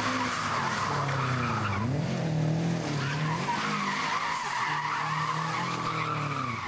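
Subaru Impreza's flat-four engine revving up and down while its tyres squeal continuously, the car sliding sideways in circles on tarmac.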